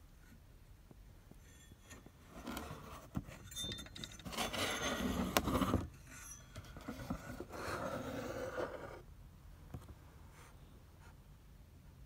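Scraping and light metallic clinks as an aluminium heatsink fitted with binding posts and a load resistor is handled and moved about, with a few sharp clicks. It starts about two seconds in and stops about nine seconds in.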